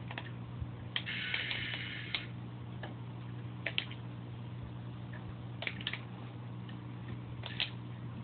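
A steady low hum with light clicks scattered through it, about eight in all, some in close pairs, and a short burst of hiss about a second in.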